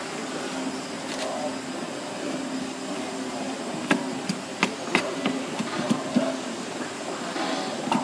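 Knife knocking against a plastic cutting board while cutting squid, a quick run of sharp knocks about three a second that starts about halfway through. Underneath is a steady mechanical hum.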